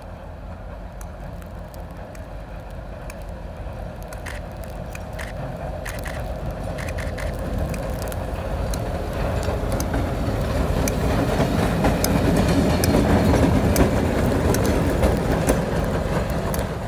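A railroad wedge snow plow pushed by a diesel locomotive comes closer along the track and passes close by, throwing snow. The engine's low rumble and the rush of snow grow steadily louder and peak about three-quarters through, with scattered sharp clicks and knocks.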